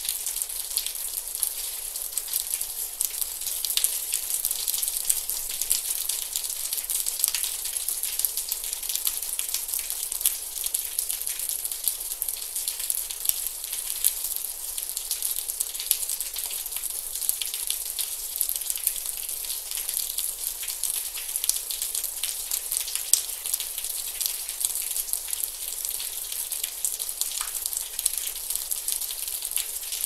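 Steady gentle rain: a dense, even patter of fine drops with no thunder.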